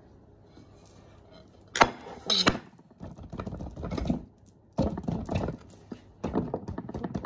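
Bundt cake pan and plate knocking down onto a countertop as the pan is flipped over, a sharp clatter about two seconds in and a second one just after. Then several spells of hands patting and rubbing on the upturned pan to loosen the cake.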